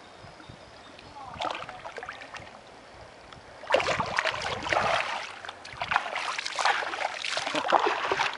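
Shallow lake water splashing as a released mirror carp of about 14 kg kicks its tail and swims off. The splashing starts suddenly about three and a half seconds in and goes on in irregular loud splashes.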